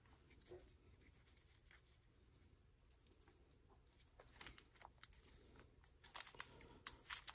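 Near silence, then from about four seconds in, faint scattered clicks and rustles of fishing line and reel being handled while the line is threaded through a rod guide.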